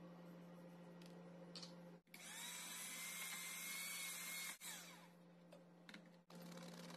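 Electric hand mixer beating margarine and icing sugar in a glass bowl: the motor whirs up about two seconds in, runs for about two and a half seconds, then winds down.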